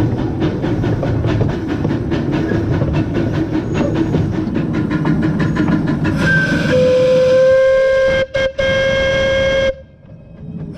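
Small 0-4-2T steam tank engine running along the track with a rhythmic clatter. About six seconds in, its steam whistle gives one long blast, broken twice briefly near its end, then stops.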